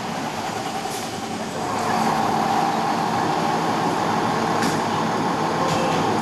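Diesel engines of a fire engine and ladder truck running in the station bays, growing louder about a second and a half in. A car drives past at the start.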